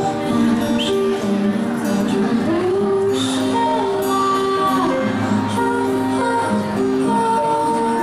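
Live band music: a female singer and a bowed violin carrying the melody over acoustic guitar and keyboard, with long held notes and a few sliding pitches.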